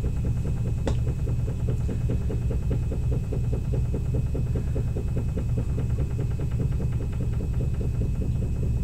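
A steady low hum with a fast, even pulsing running through it, and a single sharp click about a second in.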